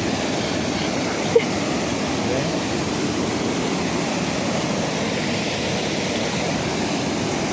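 Steady rush of flowing river water, with one brief click about a second and a half in.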